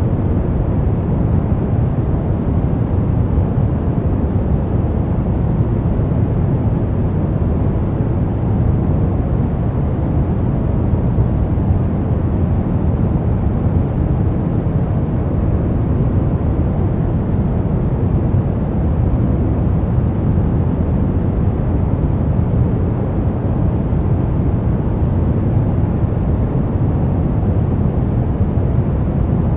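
Steady brown noise: a deep, even rumbling hiss with most of its weight in the low end, unchanging throughout.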